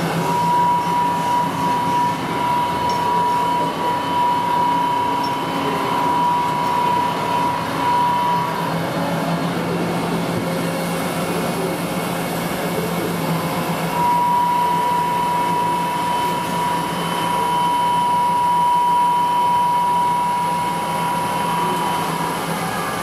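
Junker BUAJ 31 CNC universal cylindrical grinder running under power: a steady machine hum and hiss, with a high steady whine that stops about nine seconds in, comes back about five seconds later and cuts off just before the end.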